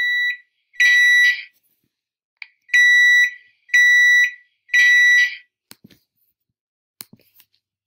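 Oven timer beeping: loud, steady high-pitched beeps about a second apart, in sets of three with a short pause between sets. A few faint clicks near the end.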